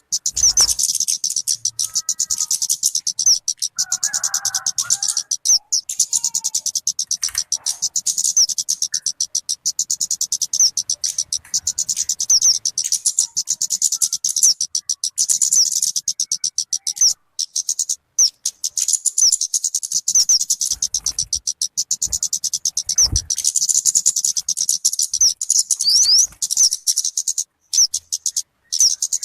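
Recorded song of the talokan (kemade) bird, of the kind used for bird luring or song-training: a rapid, continuous stream of high-pitched chirps with only brief pauses, and a faint low hum underneath.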